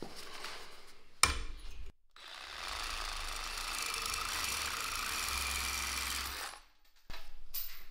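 Cordless DeWalt reciprocating saw cutting through 8 mm steel rebar held in a vise. There is a loud burst as the blade bites about a second in, then a steady rasping cut for about four seconds that stops once the bar is through. A shorter run of the saw follows near the end.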